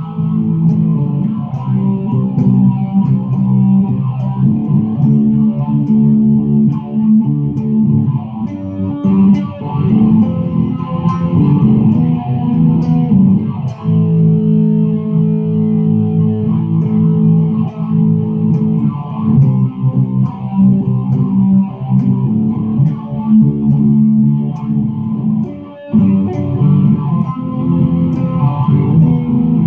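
Semi-hollow-body electric guitar played solo, a continuous run of picked notes and chords, with a brief break about four seconds before the end.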